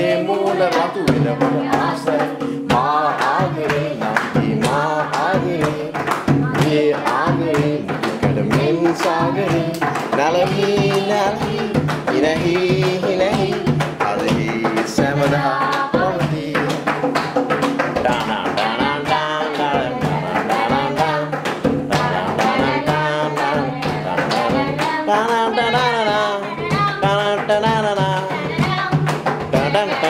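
Singing accompanied by hand drumming on a large plastic water-cooler bottle used as a drum: quick slaps and taps on the bottle over a held low note.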